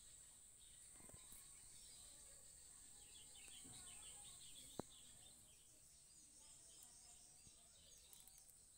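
Near silence: faint background with a steady high hiss and scattered faint chirping, and one small click about five seconds in.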